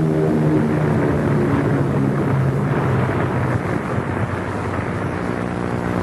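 Propeller aircraft engines droning overhead: a steady, low pitched hum over a rushing noise, the sound of enemy bombers during an air raid.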